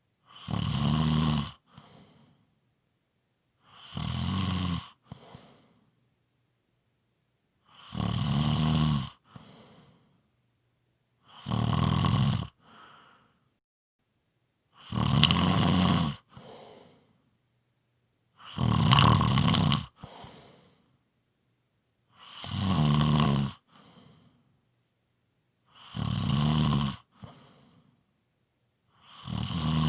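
A person snoring heavily, one loud snore about every three and a half seconds, nine in all. Each lasts about a second and a half and is followed by a short, softer breath out, with silence between.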